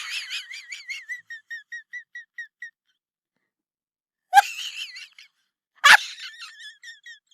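High-pitched squeaking in three trailing runs of quick repeated squeaks. The first fades out over the opening few seconds, and the other two start sharply about four and six seconds in.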